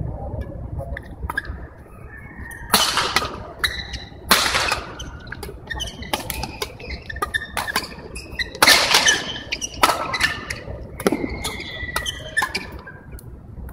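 A badminton doubles rally: rackets hitting the shuttlecock in sharp clicks, and sneakers squeaking on the court, with a few louder bursts about three, four and a half, nine and eleven seconds in.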